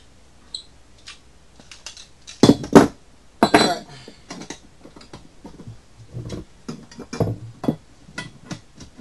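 Copper pipes and copper elbow fittings clinking and knocking together as they are dry-fitted on a plywood floor before soldering. The loudest knocks come in a cluster about two and a half to three and a half seconds in, followed by many lighter clicks and taps.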